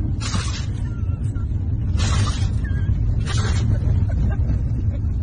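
Steady low road rumble inside a moving car's cabin, broken by three short breathy hisses from the huskies tussling on the back seat.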